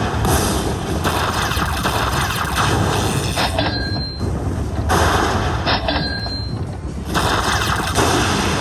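Lightning Link slot machine sound effects: a loud, dense run of booming, crashing game noise that thins out twice for about a second near the middle.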